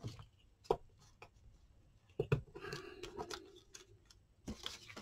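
Paper craft materials handled on a tabletop: a few light knocks and taps, with a stretch of rubbing on paper about halfway through.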